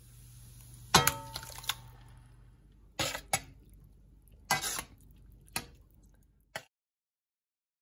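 Metal spatula and bowl knocking against a stainless steel frying pan as crushed tomatoes are tipped in and stirred: about six sharp clinks, the loudest about a second in. The sound cuts off suddenly about a second before the end.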